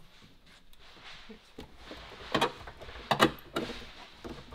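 A few sharp clicks and knocks over a faint hiss, mostly between two and three and a half seconds in: hands working at plastic covers and wiring connectors in a car's front trunk.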